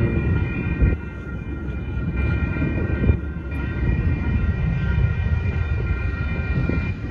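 Railroad grade-crossing warning bell ringing steadily while the crossing signals are active, over a low rumble.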